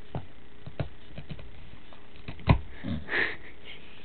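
A dog sniffing and nosing at a torn-open plush toy and its pulled-out stuffing, with a few light taps, one sharp louder knock about two and a half seconds in, then a breathy sniff.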